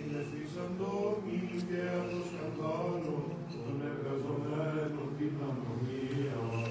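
Male voices chanting Byzantine chant in Greek: long, sustained sung lines over a steady low held tone.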